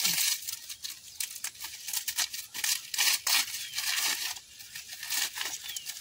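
Dry maize husks being torn and peeled back from a harvested ear by hand: an irregular run of crisp, papery rips and crackles.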